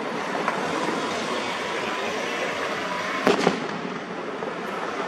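Fireworks going off: a quick double bang about three seconds in, with a fainter pop near the start, over a steady background hiss.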